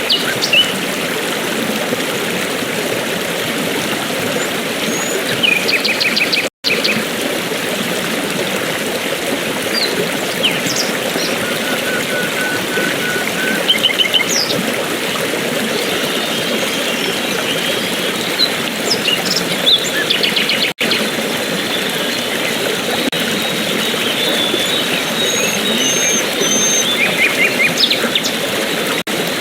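Steady rush of a stream or waterfall, with small birds chirping in short, scattered calls over it. The sound cuts out for an instant about six and a half seconds in.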